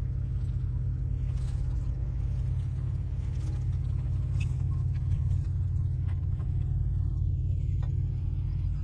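Steady low rumble with a constant hum from the diesel engines of a distant Great Lakes ore freighter and harbor tug maneuvering in the ice.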